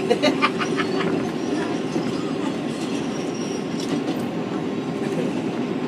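R188 subway car on the 7 line running over elevated track, heard from inside the car: a steady rumble with a quick run of clacks over rail joints about a second in and a faint high wheel squeal near the end.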